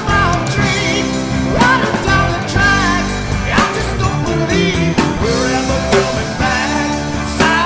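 Heavy metal band playing. A lead line bends and wavers in pitch over sustained low chords.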